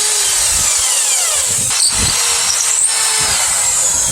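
Electric grinder working the spring-steel blade: a loud, steady grinding noise with whining tones that slide down in pitch.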